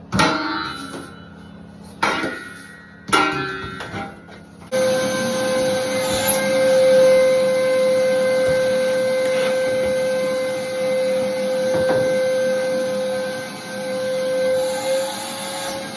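A few knocks and clinks, then about five seconds in a vacuum cleaner switches on and runs with a steady whine, picking up shattered shower-door glass.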